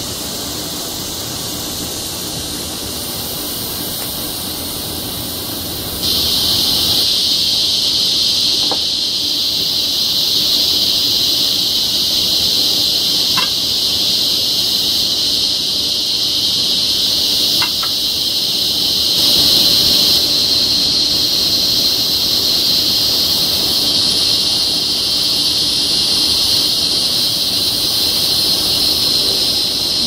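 Loud chorus of cicadas, a steady high buzzing that swells about six seconds in and then holds. A few faint clicks can be heard under it.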